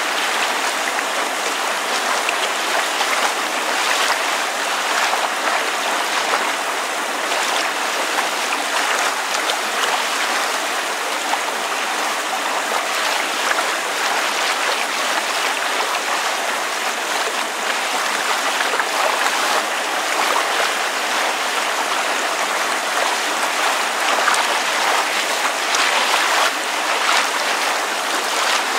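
Water lapping with rain falling: a steady, even wash of splashing and hiss.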